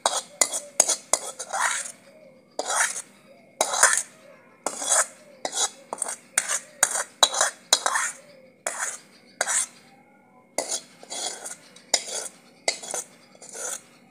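Steel ladle scraping and knocking against a black iron kadhai as boiled dal is scooped out of it into a steel bowl: repeated metal scrapes and clinks, about two a second, with a short pause about ten seconds in.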